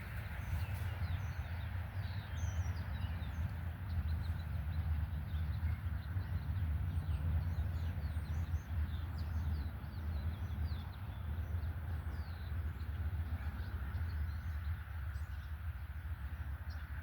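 Outdoor ambience: many small birds chirping over a steady low rumble.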